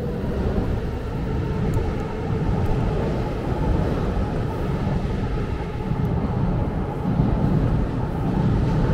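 City street traffic, cars running past, under a steady low rumble of wind and road noise on a camera riding a moving bicycle.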